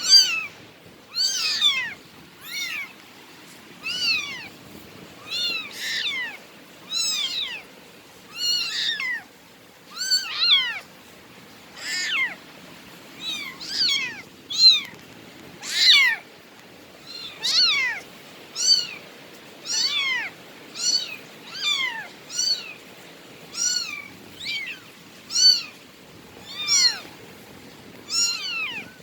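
Bengal cat meowing over and over: short meows, each rising then falling in pitch, about one a second without a break.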